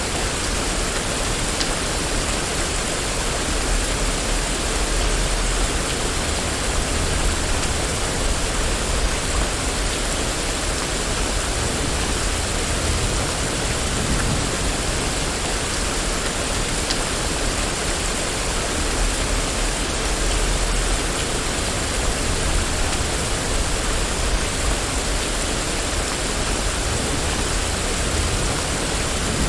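Steady rain falling on a street, a constant even hiss, with a low rumble underneath that swells now and then.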